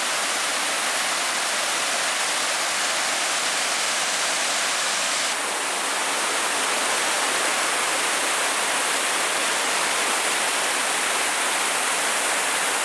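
Steady rush of water pouring over the dam and down the creek, an even hiss with no breaks; its tone shifts slightly about five seconds in.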